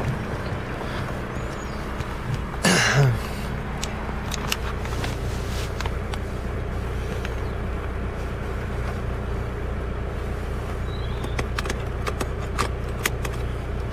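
Car running, heard from inside the cabin as a steady low hum. A brief louder sound with falling pitch comes about three seconds in, and a few light clicks come near the end.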